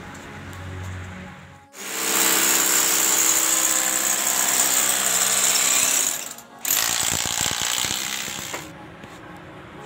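Electric drill boring into the balcony wall to fix the glass balcony's rails. It runs steadily at speed for about four seconds, stops briefly, then runs again for about two seconds with a fast rattle.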